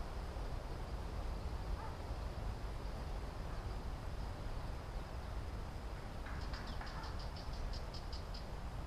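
Steady low outdoor rush of wind and sea, with a faint steady high tone under it. About six seconds in, a small creature gives a rapid high-pitched trill of about six pulses a second, lasting about two seconds.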